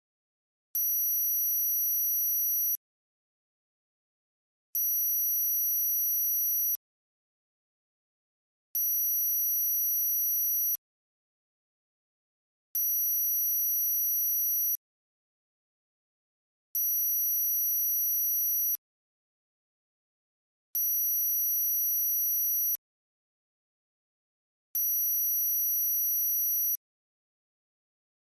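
A synthesized high-pitched electronic tone for tinnitus masking. It is one steady pitch with a fainter tone an octave above, and it comes on for about two seconds and stops for two, seven times over.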